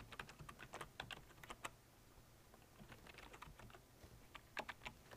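Faint typing on a computer keyboard: a quick run of key clicks, a short pause, then more keystrokes, the loudest few near the end.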